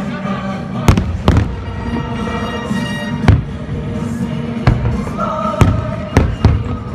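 Fireworks shells bursting in sharp, irregular bangs, about seven of them, over the show's music soundtrack.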